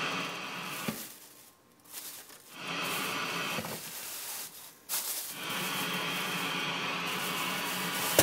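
Boat stereo radio with no antenna connected, giving out steady static hiss that drops out twice.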